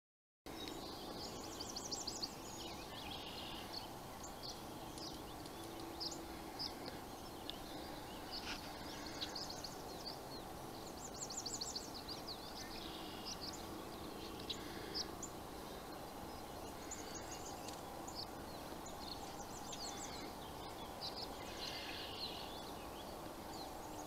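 Several birds singing and chirping, with a rapid high trill that comes back about three times, over a faint steady background hum.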